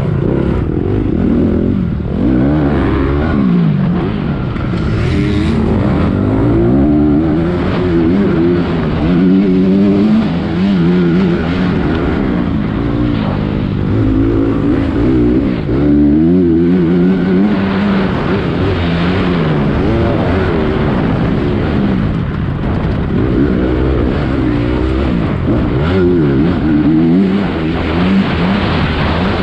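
Motocross dirt bike engine revving hard while being raced. Its pitch climbs again and again through the gears and drops each time the rider shifts or backs off the throttle.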